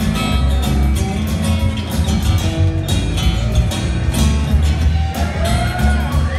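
Live band playing an instrumental passage: strummed acoustic guitar over a walking upright bass and drums, with no singing.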